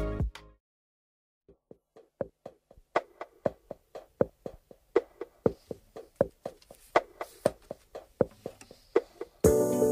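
Music fading out, then after a short quiet a steady knocking percussion beat of about two knocks a second, with extra knocks in between. A fuller music track comes in suddenly near the end.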